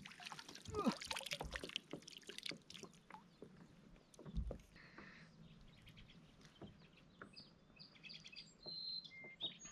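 Faint scattered clicks and knocks of a fish being fought and landed from a kayak, with a dull thud about halfway. A few short high bird chirps come near the end.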